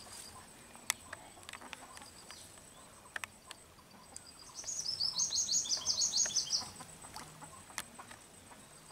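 A small bird singing a rapid trill of high notes, about two seconds long and falling slightly in pitch, starting about halfway through.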